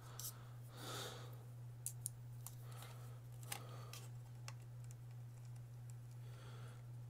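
Faint, scattered clicks and taps from handling a plastic handheld controller and swapping precision screwdriver bits, over a steady low hum.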